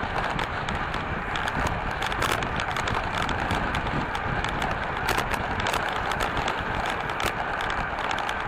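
Wind rushing over the microphone of a camera on a moving bicycle, with tyre noise on asphalt. Many small clicks and rattles run through it.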